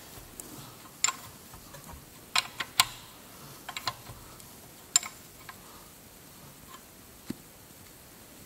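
Ring spanner on the crankshaft sprocket bolt clicking as the engine is turned over by hand toward its timing mark: about eight irregular, sharp metal clicks over the first five seconds, then one more knock near the end.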